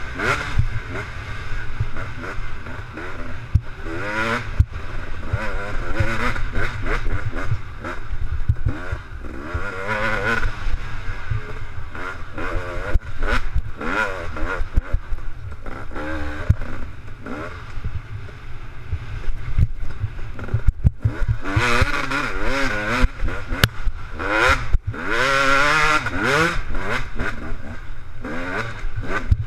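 KTM 250 XC two-stroke dirt bike engine revving hard under racing, its pitch climbing and dropping over and over as the rider accelerates, shifts and backs off, with scattered knocks.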